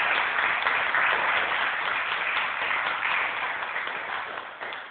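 Small audience applauding, the clapping tapering off near the end.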